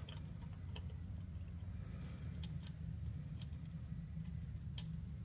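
Scattered light clicks of steel tweezers against a capacitor lead and the circuit board as the lead is bent, over a steady low hum.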